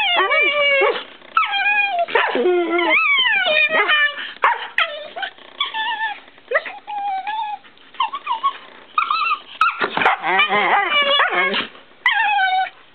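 A Shiba Inu and a Siberian Husky making play vocalizations: pitched calls that slide up and down, in quick runs with short gaps. They are loud at first, quieter through the middle, and loud again around ten seconds in.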